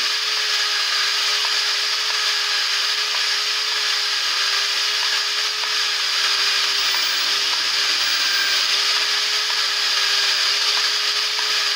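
Electric hand drill running steadily, spinning a diesel engine valve clamped in its chuck so that the valve is lapped against its seat in the cylinder head with lapping compound. It makes a steady whine that holds one pitch.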